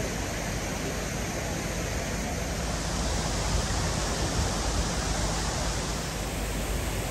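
Steady outdoor rushing noise with a low, fluttering rumble underneath and no distinct events.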